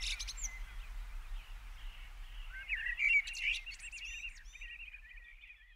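Small birds chirping and twittering in quick high notes, with a burst at the start and a livelier run from about three seconds in that fades out at the end.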